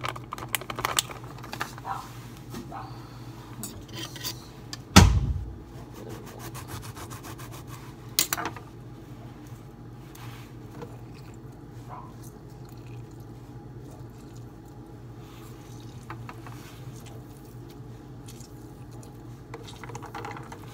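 Kitchen-counter handling noise while a drink is made: small clicks and rustles, a loud thump about five seconds in, a sharp knock a few seconds later, then a steady low hum with occasional faint taps.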